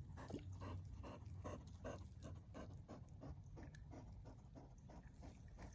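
A dog panting rapidly and faintly, about four to five breaths a second.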